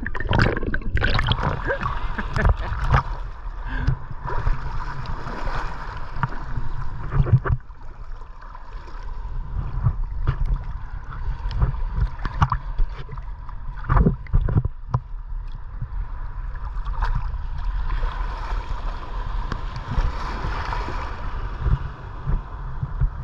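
Shallow seawater sloshing and lapping around a camera held at the water's surface, with scattered splashes and knocks of water against the camera.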